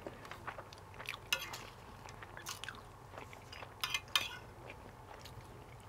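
Close-miked chewing of a mouthful of rice and garlic-fried pork: soft, wet mouth clicks at irregular moments. A spoon taps and scrapes against the plate a little past halfway.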